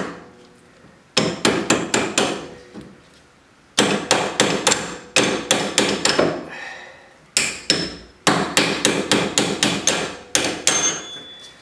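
Rapid hammer blows on steel tools, struck in runs of about four or five strikes a second with short pauses between runs, each strike ringing briefly. The blows knock at the inner tie rod removal tool to work the broken-loose inner tie rod off the steering rack.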